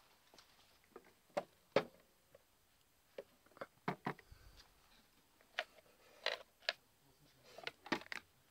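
A series of irregular, sharp clicks and taps, about a dozen, some in quick pairs, over a faint quiet background.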